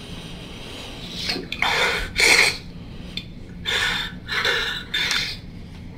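A young man crying: several ragged, noisy sobbing breaths and sniffs in quick succession, with no words.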